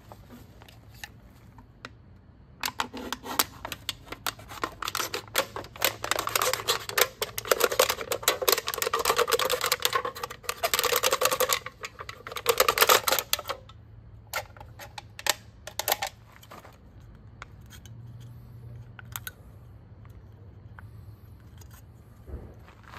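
Thin aluminium drink can being cut apart by hand: a dense run of rapid clicks and crinkles of the thin metal lasting about ten seconds, then a few scattered clicks before it stops.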